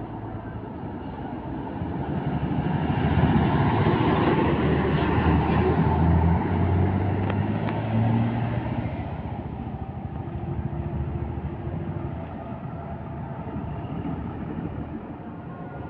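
Diesel bus engine pulling away, growing louder to a peak in the middle with its pitch stepping up as it accelerates, then fading as it moves off, over steady road traffic noise.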